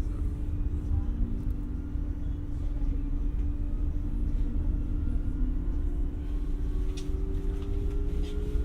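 Stockholm commuter rail X60 electric multiple unit running, heard from inside the carriage: a steady low rumble with a constant hum. About six seconds in, a whine begins and slowly rises in pitch.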